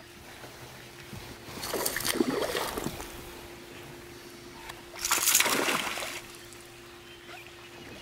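A hooked spotted bass thrashing and splashing at the water's surface beside the boat, in two bursts of about a second each, the second a few seconds after the first.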